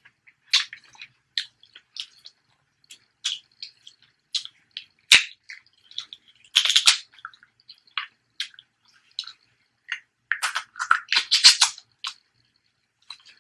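Close-miked eating of snow crab legs: scattered sharp wet clicks and crackles of shell and meat being cracked, chewed and smacked. There is one sharp snap about five seconds in and denser bursts of crackling near seven and eleven seconds.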